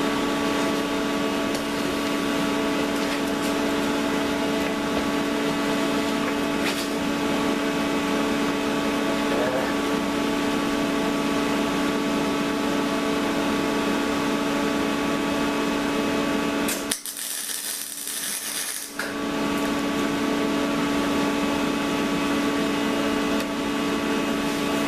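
MIG welder in use for tack welds: a steady electrical hum with crackling from the arc, welding without shielding gas. Near the end the hum drops out for about two seconds, leaving a high hiss.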